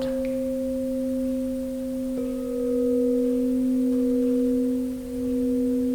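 Ambient meditation music: a soft drone of two pure held tones. The upper tone steps slightly lower about two seconds in, and the sound swells gently and dips briefly near the end.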